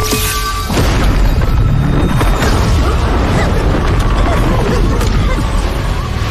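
Dramatic background music with a heavy sound-effect boom and low rumble that hits suddenly at the start and swells louder about a second in.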